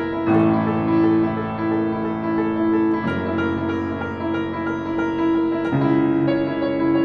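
Grand piano played solo: sustained chords that change about every two and a half seconds, with a repeated note in the middle register sounding throughout.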